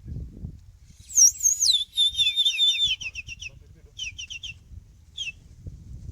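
A bird calling loudly: a high, wavering whistled note, then quick falling chirps, the last of them in short groups of three or four, stopping a little after five seconds in.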